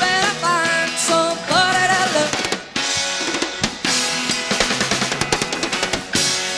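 Rock band playing live. A sliding, wavering lead line rides over the band for the first two seconds or so, then the drum kit takes over with fast, busy snare and bass-drum playing.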